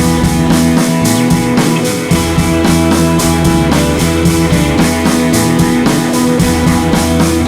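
Background rock music with guitar and drum kit, a steady beat.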